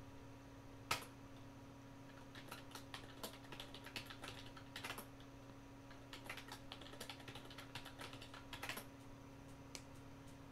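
Typing on a computer keyboard: a single sharp key press about a second in, then two runs of quick keystrokes, faint over a steady low electrical hum.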